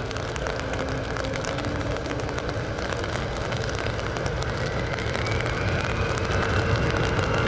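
Jet airliner engines running: a steady rushing noise with a thin whine that rises in pitch and grows louder from about five seconds in.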